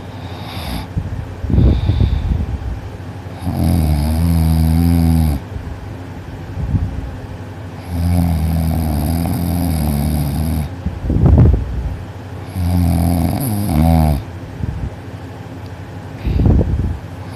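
A teenage boy snoring loudly as he sleeps on his back with his mouth closed: three long, low snores of about two seconds each, with short noisy breaths between them.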